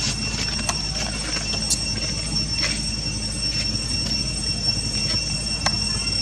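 Steady high-pitched drone of insects, two unbroken high tones, with scattered short crackles of dry leaves being stepped on and handled by the monkeys.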